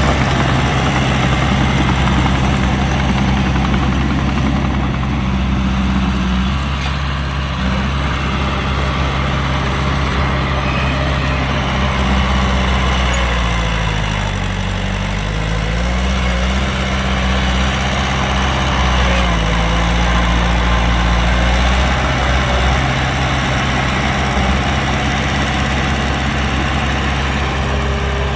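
Heavy diesel engine of construction machinery running with a steady low drone. About halfway through, its pitch sags and climbs back, as when the engine is loaded and then recovers.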